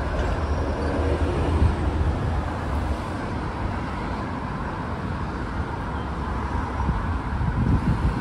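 Steady city road traffic: cars and buses running along a busy multi-lane street, with a fluctuating low rumble of wind on the microphone as the recorder moves.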